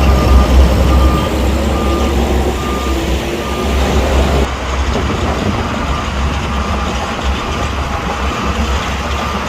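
Heavy earthmoving vehicle's diesel engine running with a deep rumble while its reversing alarm sounds regular high beeps, the machine backing up. The beeps are clear at first and fainter in the second half.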